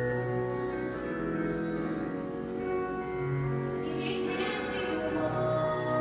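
A woman singing a slow song into a microphone over instrumental accompaniment, her voice coming in more strongly about four seconds in.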